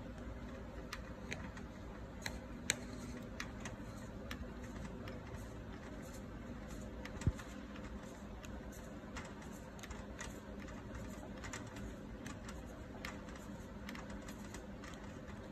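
Irregular small clicks and ticks as a rubber lens-removal tool is twisted against the lens ring of a Fuji GS645W camera, with two sharper clicks, about 3 s and 7 s in, over a steady low hum.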